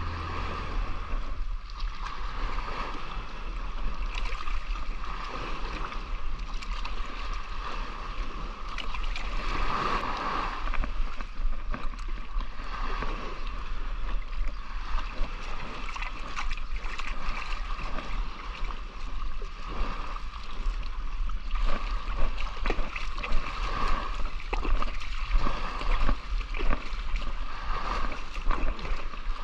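Water sloshing and splashing against a steady low rumble, with scattered short knocks and splashes that come more often in the second half.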